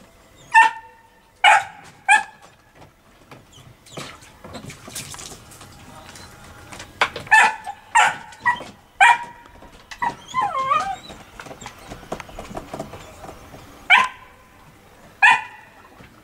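Puppy barking in short, sharp, high-pitched yaps, about ten in three clusters: three near the start, five in the middle and two near the end. A little past the middle comes a wavering whine.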